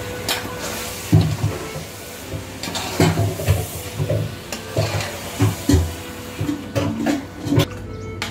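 A metal ladle stirring food in a steel cooking pot, knocking and scraping against the pot at an uneven pace, over a steady hiss. The knocks start about a second in and stop near the end.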